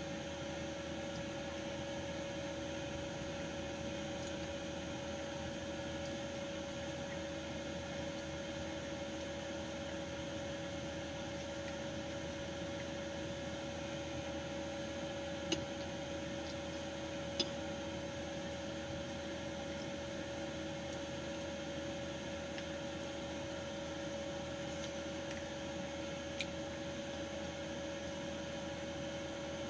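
Steady room hum from an electrical appliance or fan, with a faint clear tone running through it; two faint clicks about halfway through and another near the end.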